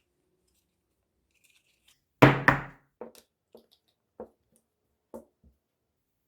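Metal parts of a hand rivet nut tool being handled: a heavy clunk about two seconds in, then a string of fainter clicks and knocks roughly every half second.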